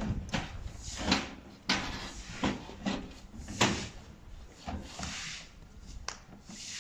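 Irregular knocks and clanks, about a dozen, from workers stepping on and handling parts of a mobile stage truck's aluminium checker-plate stage deck and metal step ladder.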